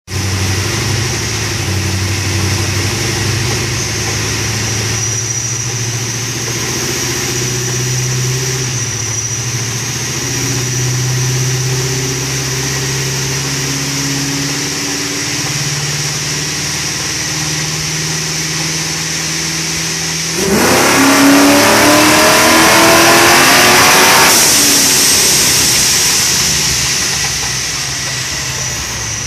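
Supercharged 455 cubic-inch Pontiac V8 (YSI blower at 10 psi, iron heads, small cam) running in gear on a chassis dyno, stepping up gently at first. About 20 seconds in it goes to full throttle for a dyno pull and revs up hard for about four seconds, then lifts off and coasts down as a high whine falls away.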